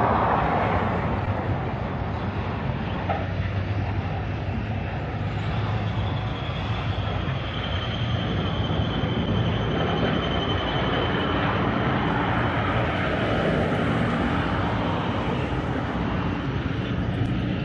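Steady rumble of engines from road traffic and heavy machinery, with a faint high whine through the middle.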